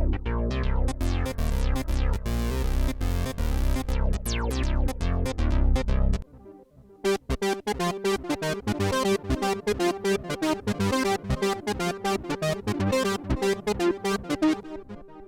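Roland JU-06A Boutique synthesizer playing a rapid repeating run of notes over a deep bass line. About six seconds in it stops, and after a short break a lighter, higher note pattern without the bass starts, fading out near the end.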